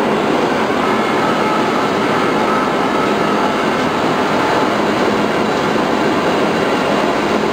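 ART XR4800 CNC router at work, cutting fibreglass ducting insulation with its reciprocating knife: a steady, even machine noise with no breaks.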